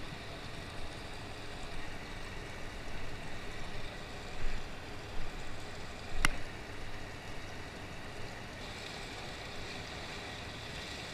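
Steady outdoor background noise with no clear single source, and one sharp click about six seconds in. The hiss rises slightly near the end.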